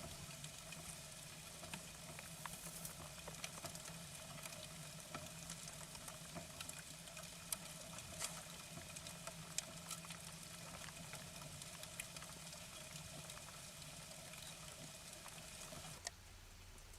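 Faint, irregular clicks and crunches of an animal feeding at a feeding station, over a steady electrical hum from the camera setup. The clicks and hum stop abruptly about sixteen seconds in.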